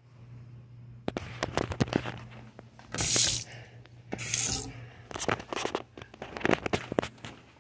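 Clicks, knocks and rubbing of a handheld phone being moved around, with two short hissing bursts about three and four seconds in. A steady low hum runs underneath, in a small tiled room.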